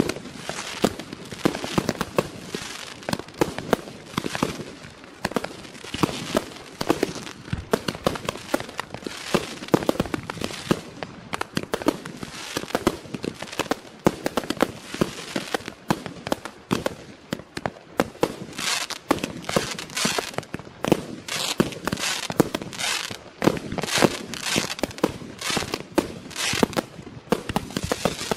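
Klasek Best Price 200-shot 30 mm fireworks cake firing continuously: a fast, unbroken run of sharp launch bangs and shell bursts, several a second.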